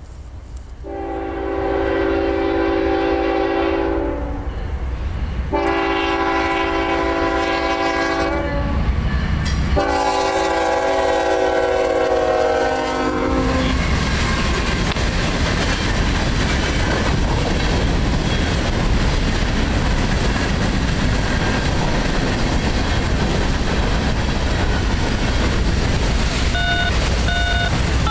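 Air horn of a Norfolk Southern GE ES44AC freight locomotive sounding three long blasts, the last one dropping in pitch as the locomotive passes. Then comes the steady rumble and wheel clatter of the freight cars rolling by.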